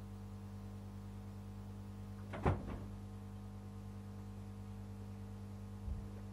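Steady electrical mains hum from stage sound equipment, with one sharp thump about two and a half seconds in and a fainter knock near the end.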